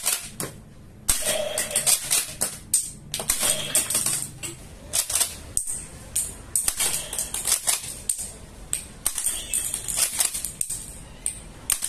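Irregular clicking, tapping and rattling of hard plastic parts and packaging being handled while a toy shotgun is unboxed.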